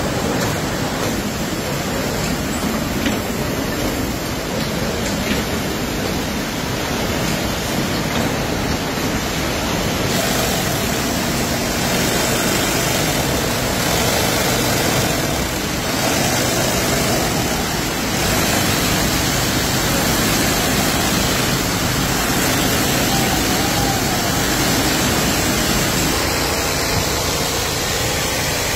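Jute-mill machinery running: a loud, steady din of a power loom weaving hessian sack cloth, shifting about ten seconds in to the noise of the sack-sewing floor with its industrial sewing machines.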